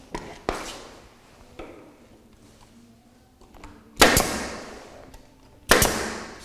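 Pneumatic stapler firing twice, about a second and a half apart, each shot a sharp bang with a brief hiss after it as it drives staples through rubber U-boat floor isolators into wooden floor framing. A few lighter knocks come before, in the first second or two.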